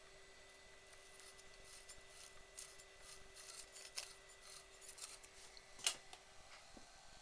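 Faint handling noise: scattered soft clicks and rubbing as the film scanner's insides are handled, with one sharper click about six seconds in, over a faint steady hum.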